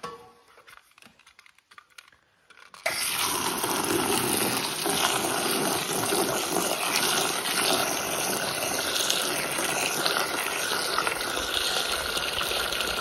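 A garden hose spray nozzle pouring a jet of water into a plastic feed tub of horse pellets to soak them, starting suddenly about three seconds in after a few faint clicks and then running steadily.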